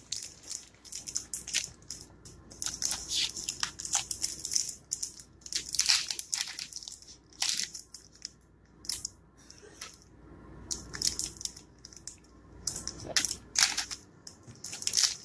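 A foil Yu-Gi-Oh booster pack wrapper crinkling and tearing as it is opened by hand, in irregular sharp crackles with a short lull about two-thirds of the way through.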